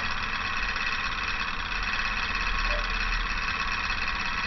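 Homemade alpha-type Stirling engine with glass-syringe cylinders running steadily at about 1000 RPM, a fast, even mechanical whir. This is the engine running without a regenerator.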